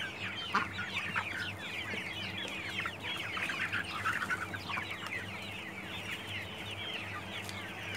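A large flock of young chickens peeping and chirping without pause, many short, high, falling chirps overlapping.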